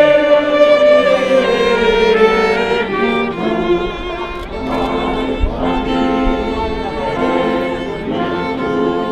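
Live acoustic music from a small street ensemble: a violin and a trombone playing slow, held notes, with a group singing along from song sheets.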